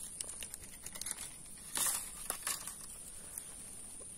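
Crackling, crinkling rustle of dry grass and scattered small clicks as a just-hooked snakeskin gourami is landed and handled, with a louder rustle about two seconds in.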